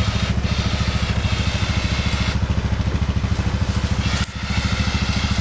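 ATV engine running at a steady idle, an even low pulsing throb, with a brief dip in level about four seconds in.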